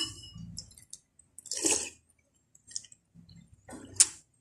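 Eating soup from a bowl with a spoon: chewing and mouth sounds, a soft burst about halfway through and a sharp click of the spoon against the bowl near the end.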